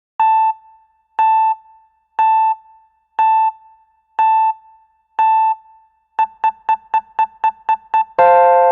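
Electronic countdown beep sound effect: six pitched beeps a second apart, then eight quick beeps, then a long held tone near the end that slowly fades.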